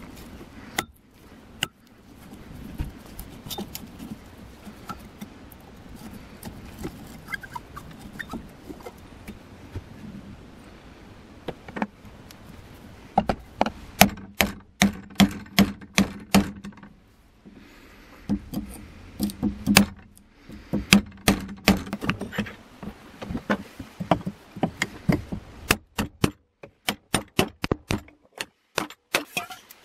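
Hammer blows on a steel punch driving the old wooden handle stub out of the eye of a rusty axe head held in a vise: runs of sharp metallic strikes, about three a second, with short pauses between runs. The first part is quieter, with a low steady noise and scattered light knocks.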